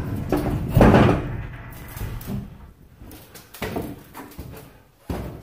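Hollow knocks and thumps on the aluminium floor and fittings inside a cattle trailer: a loud one about a second in that fades away, then fainter ones, the last just before the end.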